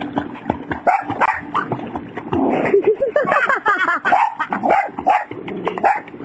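A dog barking and yipping over and over in quick succession, with a wavering, whining call about three seconds in.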